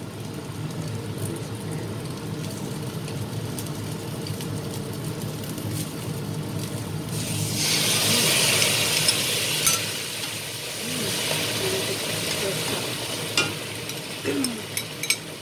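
Garlic and shallots frying gently in oil, then a loud burst of sizzling about halfway through as raw goat meat is tipped into the hot pan, dying down after a couple of seconds. A few sharp clinks near the end, over a steady low hum.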